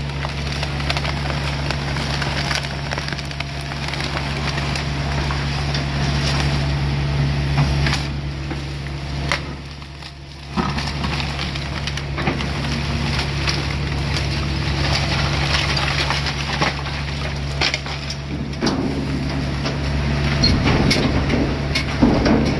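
Hitachi Zaxis 250LC-6 excavator's diesel engine running with a steady low hum, while loaded material crunches and clatters with many sharp cracks. The sound briefly drops off about ten seconds in.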